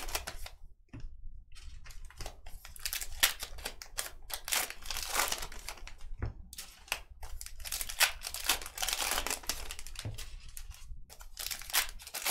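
Baseball card pack wrappers crinkling and tearing open, and cards being handled, in an irregular run of crackles and rustles.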